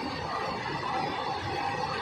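Train running past on the track: a steady rumble and rattle of wheels on rail.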